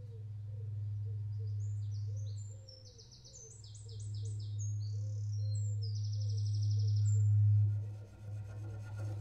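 Cello bowed on one long low note that swells twice, the second swell the loudest, breaking off about eight seconds in. A songbird sings a fast, trilled phrase over it from about three to seven and a half seconds in.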